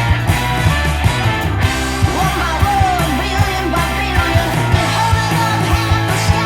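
Rock music with a singing voice and a steady drum beat, played back through a vintage Telefunken TLX series loudspeaker.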